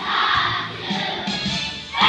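A group of young children singing a song together in unison, with musical accompaniment underneath.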